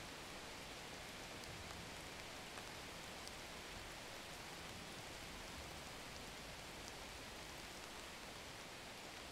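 Steady, even hiss with a few faint ticks.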